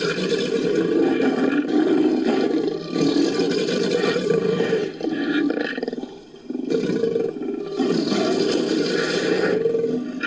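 Designed creature roars layered from big-cat and crocodilian recordings: a run of long, deep, rough roars with brief breaks between them, the longest pause a little past the middle.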